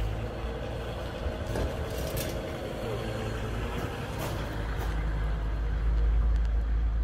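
Low rumble of a nearby motor vehicle running, swelling a little near the end, with a few light clicks.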